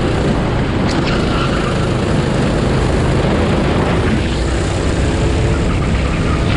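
Racing kart's engine running steadily on track, heard onboard.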